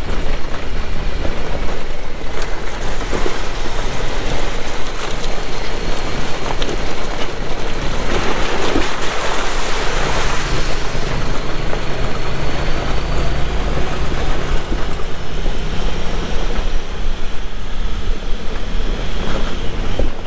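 Honda Talon X-4 side-by-side driving on a dirt trail: its parallel-twin engine running steadily under a loud rush of wind and tyre noise, heard from on board. The rush grows louder for a few seconds about eight seconds in.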